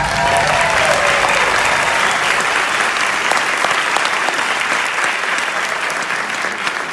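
Theatre audience applauding, with a brief shout or cheer in the first second.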